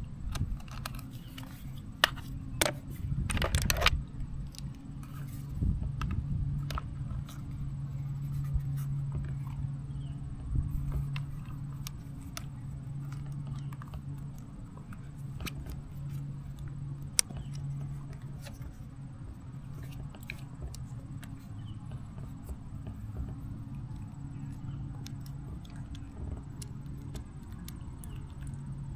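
Hands handling action-camera gear: scattered clicks and rustles of a plastic case, a mesh pouch, a camera mount and a power bank with its cable. The clicks come thickest about two to four seconds in, over a steady low hum.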